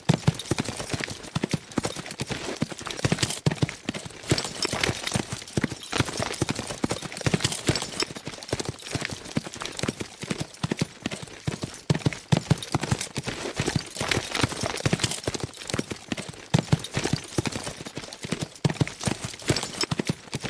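Hoofbeats of several horses galloping fast: a dense, unbroken clatter of hooves.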